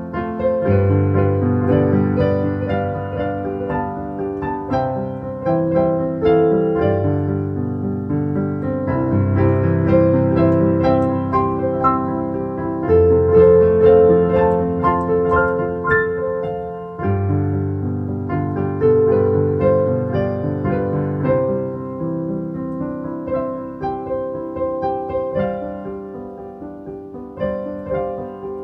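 Solo piano music: a melody of struck notes over held low notes that change every few seconds.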